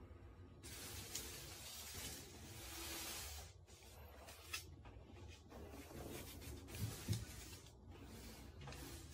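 Rubbing and rustling from hands working on the parts of an all-in-one PC during a screen replacement, with a few light clicks.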